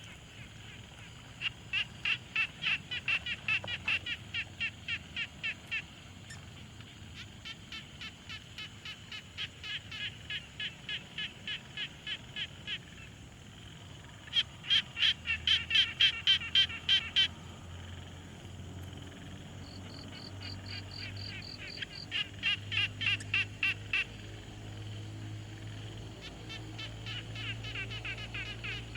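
Frogs calling at a pond: bouts of evenly spaced pulsed croaks, about three a second, each bout lasting a few seconds, with the bouts differing in loudness as one frog answers another. A short, faster, higher-pitched pulsed call comes in briefly near the middle.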